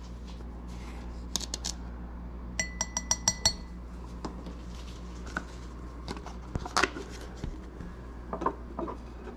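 A measuring spoon clinking on a glass mixing glass while a teaspoon of caster sugar is added: a quick run of about seven ringing clinks about three seconds in, then scattered light knocks of glassware being handled, the loudest a little before the end.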